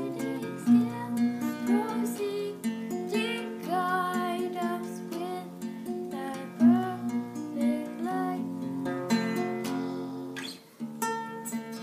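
Music with a strummed acoustic guitar and a melody line over it, briefly dropping away about ten and a half seconds in.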